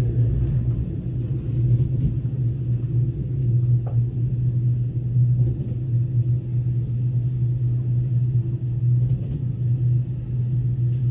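Steady low rumble of a moving train heard from inside the carriage.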